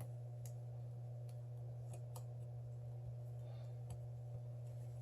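Faint, scattered light clicks and taps from small things handled on a work surface, over a steady low hum.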